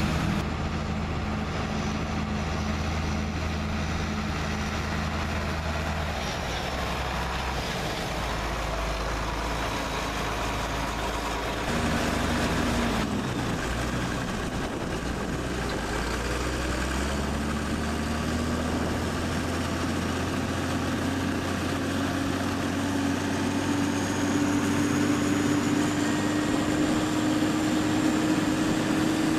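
Heavy engine running steadily. Its pitch dips about twelve seconds in, then rises slowly and evenly through the latter half as it speeds up.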